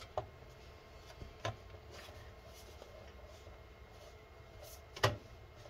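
Replacement power supply being wiggled and slid inside a desktop PC's metal case to catch its mounting brackets: faint rubbing with a few light knocks, the loudest near the end.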